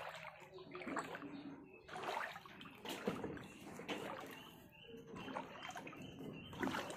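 Feet wading through floodwater, the water sloshing and splashing in uneven strokes about once a second.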